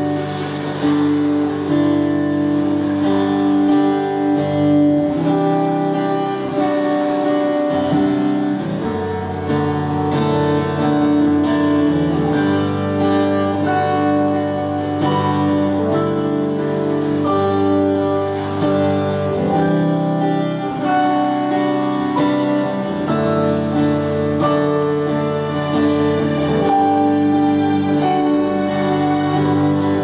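Live instrumental passage of a slow ballad: acoustic guitar with band accompaniment, playing held chords at a steady level.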